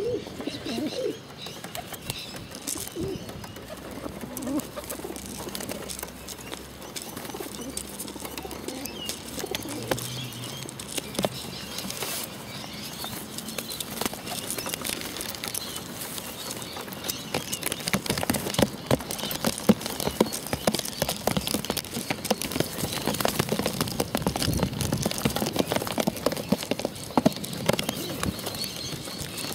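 Feral rock pigeons feeding from a plastic bottle of seed: low cooing during the first few seconds, then wings flapping and a rapid, uneven clatter of beaks pecking at the bottle that grows louder in the second half.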